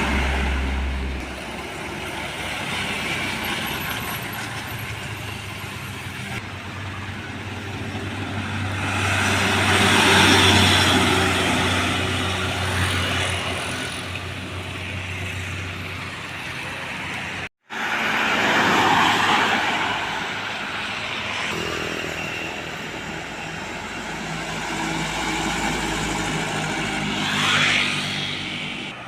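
Heavy trucks passing on a road: diesel engine hum and tyre noise swell and fade as vehicles go by, loudest about ten seconds in and again just after a sudden brief dropout in the sound about two-thirds through.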